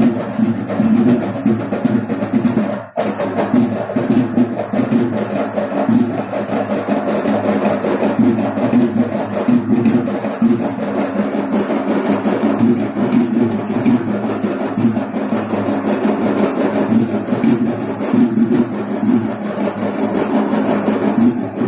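Traditional Sri Lankan low-country ritual drumming accompanying a group dance: a fast, busy drum rhythm that carries on without a pause, except for a brief dip about three seconds in.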